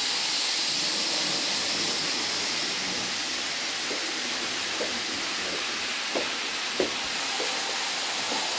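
Roco H0-scale model trains, an ÖBB Railjet and an ICE Velaro, running at speed on the layout's track: a steady hissing whir of motors and wheels on the rails. A few sharp clicks come in from about four seconds in.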